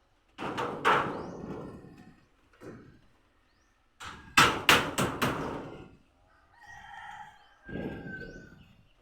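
Hammering on wood: a couple of strikes about half a second in, then a quick run of four strikes about four seconds in. A rooster crows near the end.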